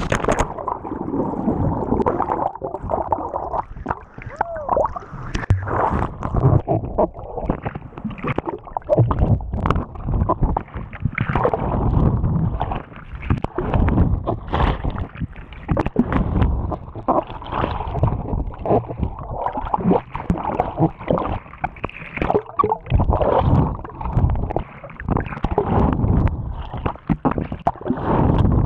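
Muffled, churning gurgle and rumble of turbulent water and bubbles in a waterfall's plunge pool, heard through a GoPro Hero 4 Session held under water. Irregular knocks and surges run through it.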